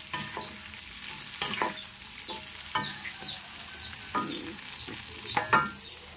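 Seasoning of shallots, garlic, candlenut and chilli frying in oil in a pan, sizzling steadily, with a spatula stirring and knocking against the pan at irregular moments; the loudest knocks come a little over five seconds in. A short high chirp repeats about twice a second behind it.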